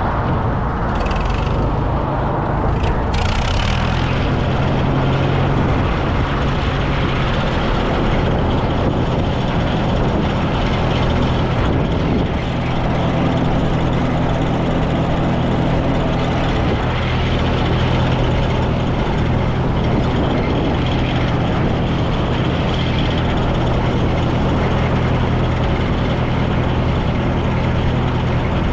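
Tractor engine running steadily, with an even low engine note.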